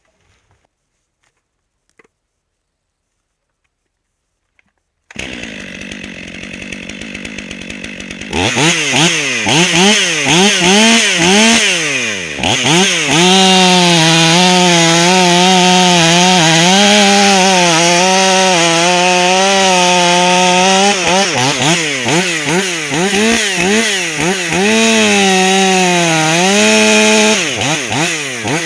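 Stihl MS 500i fuel-injected two-stroke chainsaw. After a few seconds of near silence it comes in at a lower, steadier pitch, then at about eight seconds it goes to full throttle and cuts wood, its pitch sagging under load and recovering several times.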